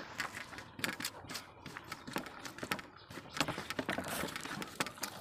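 Eating by hand: fingers mixing and scooping rice and curry on stainless steel plates, heard as irregular small clicks, taps and smacks, several a second.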